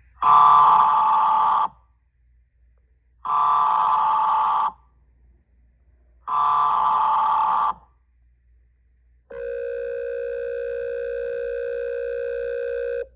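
Mock Emergency Alert System opening: three bursts of data-header tones, each about a second and a half with pauses between, the first the loudest. Then a steady attention tone holds for about four seconds and cuts off suddenly.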